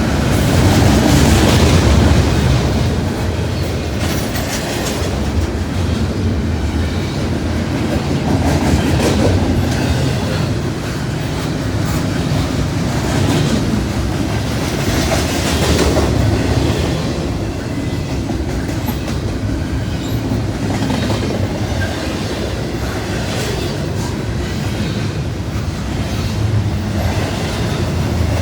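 Norfolk Southern freight train passing at speed: steady rumble of the cars with wheels clattering over the rail joints, swelling and easing as the cars go by.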